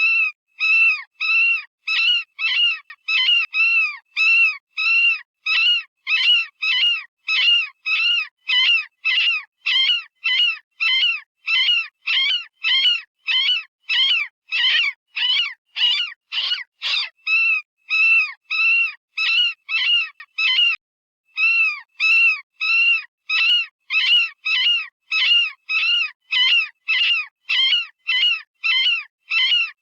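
Synthesized rabbit distress call, a short, high, wavering squeal repeated about twice a second, with one brief pause about 21 seconds in. It imitates the scream a frightened or injured rabbit gives, the sound used as a predator-hunting lure.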